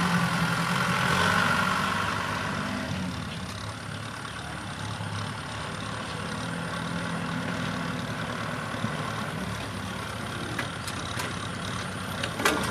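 Kubota M6040SU tractor's diesel engine running steadily under load as it pulls a disc plough through dry paddy soil. It is louder for the first couple of seconds, then steadier and a little quieter, with a few sharp knocks near the end.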